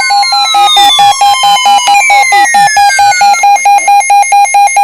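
Electronic emergency alert tone beeping rapidly, about six or seven beeps a second, with falling sweeping tones over the first three seconds, sounding the arrival of a Special Marine Warning.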